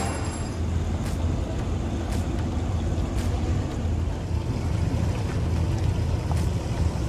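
Steady low engine rumble with wind on the microphone.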